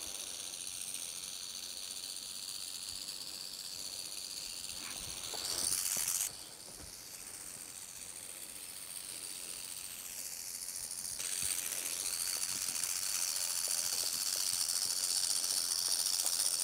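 Steady high-pitched insect chorus from surrounding bushland, a shrill drone held on several pitches at once. It changes abruptly twice, about six and eleven seconds in, with a brief louder rush just before the first change.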